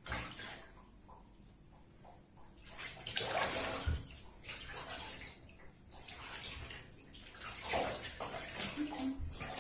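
Water splashing and sloshing in a bathtub as a wet cat is rubbed and washed by hand, in irregular bursts that grow busier from about three seconds in.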